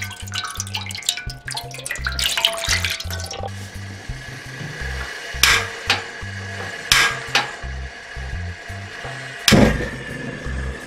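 Water pouring from a glass measuring jug into a wide, shallow pan, splashing, for about the first three and a half seconds, then stopping. Later come three sharp knocks, the last and loudest near the end, over background music with a steady beat.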